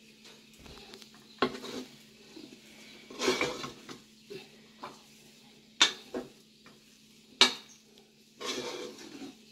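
A spoon stirring and working thick coxinha dough of flour cooked in broth in a pot on the stove. There are short scraping passes and several sharp knocks of the spoon against the pan.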